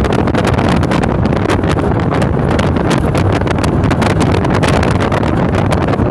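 Jet boat running at speed, heard from an open seat as a loud, steady rush. Wind buffets the microphone over the engine and water noise.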